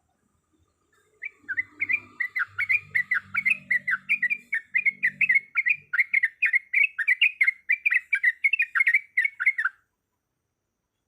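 Yellow-vented bulbul (trucukan) singing a long, fast run of sharp chattering notes, about four a second. The song starts about a second in and stops shortly before the end.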